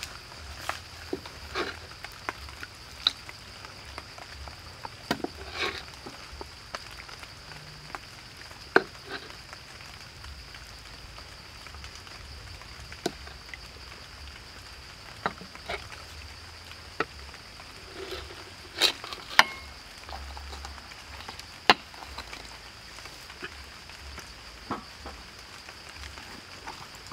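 Sauce sizzling in a wok set over a fire while it is ladled over a braised pig head. Scattered sharp clicks and taps run through it, with a steady high hum behind.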